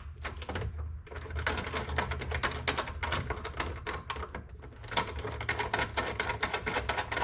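Rapid, irregular mechanical clicking over a low steady hum, starting abruptly.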